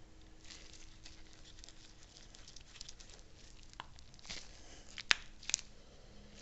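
Small handling noises of parts being worked by hand: soft rustling and light clicks, with two sharp clicks about five seconds in.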